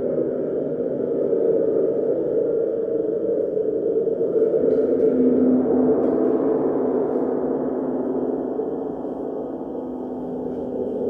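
Gong sounding in a sustained, shimmering drone of many overlapping overtones as it is played during a sound bath. It swells a little around the middle and eases off near the end.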